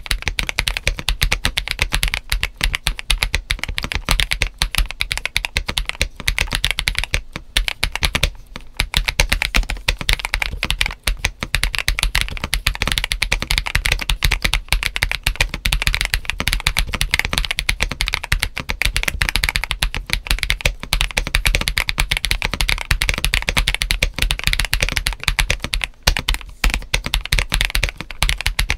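Continuous fast typing on a GAS67 mechanical keyboard modded for a poppy, clacky sound, with Akko CS White linear switches, doubleshot ABS keycaps, PE foam and a tape mod. It makes a dense run of sharp keystroke clacks with a few brief pauses.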